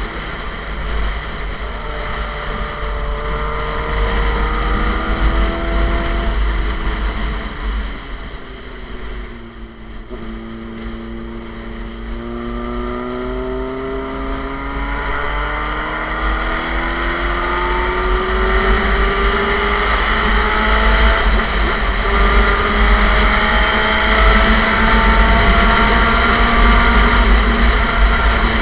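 Suzuki GSX-R motorcycle engine through an SC Project aftermarket exhaust, accelerating and easing off while riding. The note rises, then falls and quietens about a third of the way in, then climbs again in long rising pulls broken by drops in pitch, as at gear changes. A steady rumble of wind on the microphone lies under it.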